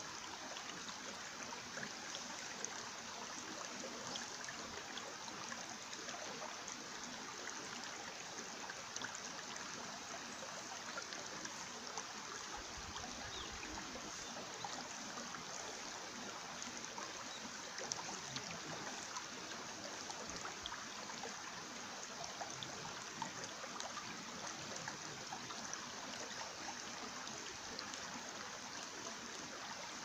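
Shallow mountain stream flowing over rocks: a steady rush of water with small trickles and splashes scattered through it.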